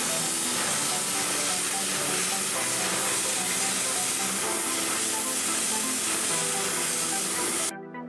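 CNC plasma cutting torch cutting a metal sheet: the plasma arc's steady hiss, with background music underneath. Near the end the hiss cuts off suddenly, leaving only the music.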